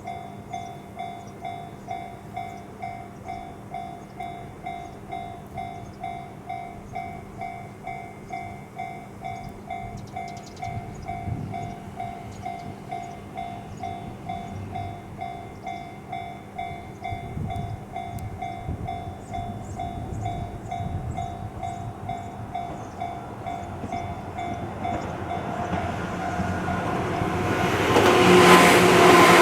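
A Japanese level-crossing warning bell rings steadily at about two strokes a second as a JR Ryomo Line train approaches. The train's running noise builds in the last few seconds and drowns out the bell.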